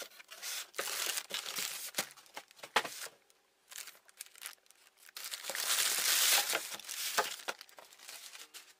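Thin black plastic packaging bag crinkling and rustling as it is handled and pulled out of a cardboard box, in irregular crackles with a short lull about three seconds in. The longest and loudest stretch of crinkling comes in the second half.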